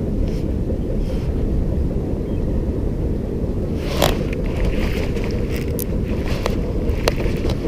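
Wind buffeting the microphone of a body-worn action camera, a steady rumble. About four seconds in comes a sharp click, then a few more clicks and brief rubbing as clothing or hands brush against the camera.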